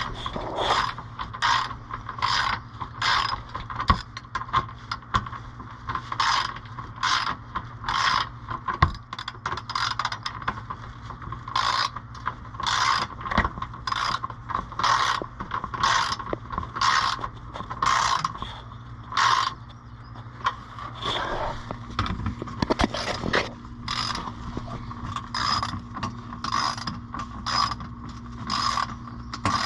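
Hand socket ratchet with an 8mm socket clicking in repeated back-and-forth strokes, about two a second, as it runs the access cover's bolts back in. There is a short pause a little past two-thirds of the way through.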